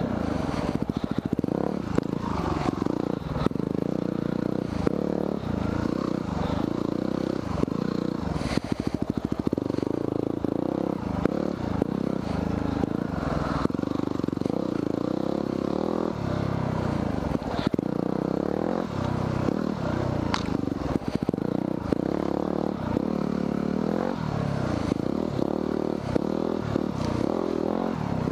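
2010 Yamaha WR250R's single-cylinder four-stroke engine running on a trail ride, its pitch rising and falling again and again as the throttle is opened and closed. Scattered clicks and knocks from the bike over the rough ground.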